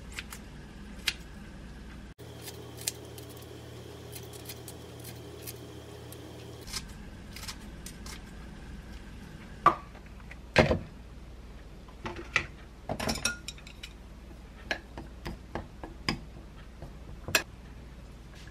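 Kitchen handling sounds: kitchen scissors snipping kimchi, then cooked rice tipped from a plastic container into a black earthenware bowl. These are separate clicks, knocks and clinks, the loudest two about ten seconds in.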